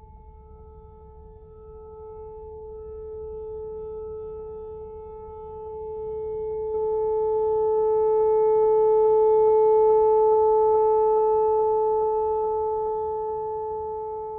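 Whelen WPS-4004 electronic outdoor warning siren sounding one steady, unwavering tone on its monthly test. The tone grows louder through the middle and then eases off again.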